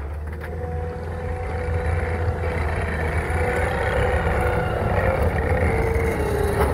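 Caterpillar compact track loader's diesel engine running steadily under load, with a faint steady whine above the low hum, as it drives on its tracks and scrapes dirt with its grapple bucket.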